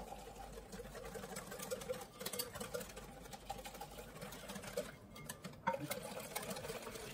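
Wire whisk clinking and scraping against a glass mixing bowl, whisking warm milk into a yolk-and-sugar custard base as it is poured in. Faint, continuous light clicking.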